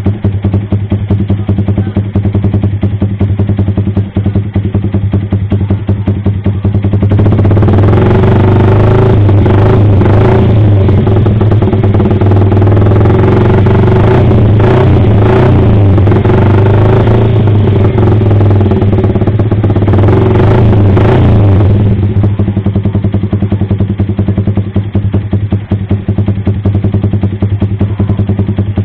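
Yamaha R15 V3's 155 cc single-cylinder engine running through an aftermarket AR Austin slip-on exhaust. It idles, then gets louder and harsher for about fifteen seconds in the middle as the throttle is blipped up and down, and settles back to idle.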